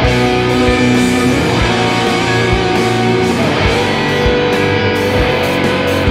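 Instrumental progressive metal: electric guitars playing over bass and drums, with steady kick drum hits.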